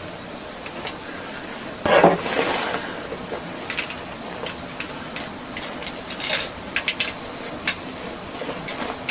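Small tools and metal fittings being handled: a short scraping rush about two seconds in, then a run of light clicks and taps.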